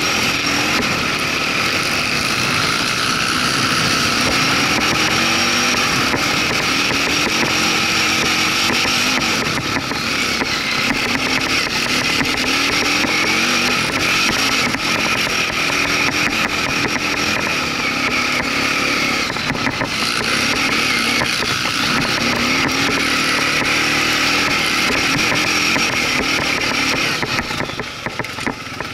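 Quad (ATV) engine running under way on a dirt trail, its pitch rising and falling again and again with the throttle. It eases off and gets quieter near the end.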